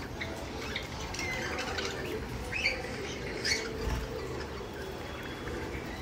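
Budgerigars giving a few faint, short, scattered chirps.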